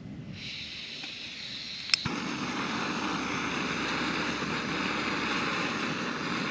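Portable camp gas stove being lit: a thin hiss of gas from the opened valve, a single sharp igniter click about two seconds in, then the burner catches and burns with a steady rushing flame noise.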